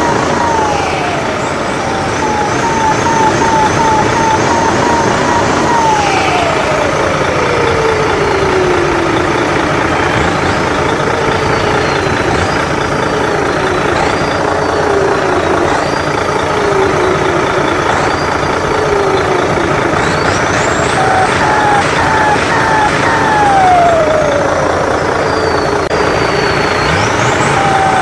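Big battery-powered RC tractor truck's engine-and-turbo sound effect playing loudly, a steady rumble under whining tones that slide down in pitch over a few seconds and then climb again in sharp rising whistles.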